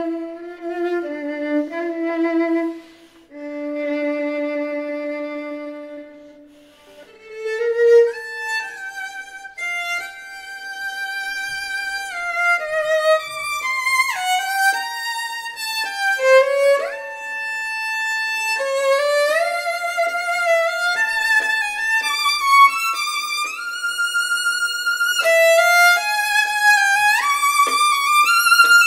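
Solo violin, bowed and unaccompanied: a few slow notes in the low register, one held for a few seconds, then quick runs that climb again and again, reaching high up near the end.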